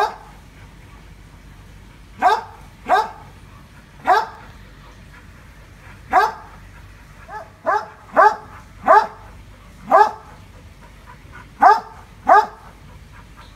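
A dog barking at a monitor lizard: about a dozen short, loud single barks at uneven intervals, some in quick pairs.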